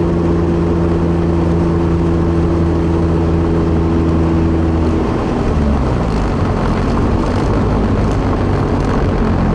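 Turbocharged SR20DET four-cylinder engine of a Nissan 240SX drift car, heard from inside the cabin while driving. It holds a steady cruising note, then about five seconds in the revs drop and climb again.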